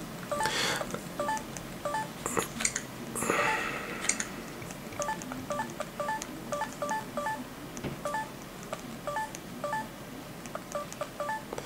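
LG Viewty (KU990) touchscreen keypad beeping with each key tap as a web address is typed. The beeps are short tones at a few different pitches, sparse at first, then in quick runs from about five seconds in. A few short bursts of hiss come in the first four seconds.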